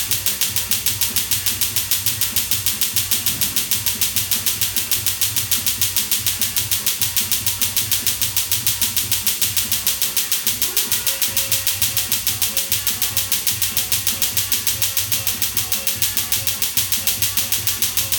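Tattoo-removal laser handpiece firing a steady train of sharp snapping pulses, about five a second, as the laser hits the tattoo ink in the skin, with a low machine hum underneath.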